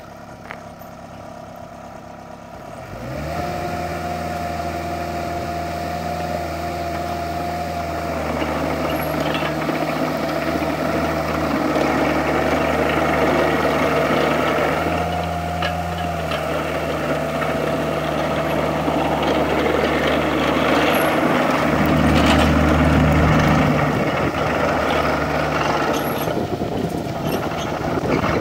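2003 Kubota KX121-3 mini excavator's diesel engine running, stepping up from idle to a higher speed about three seconds in, with a steady whine over the engine note from then on. The engine note swells briefly twice later on as the machine is worked.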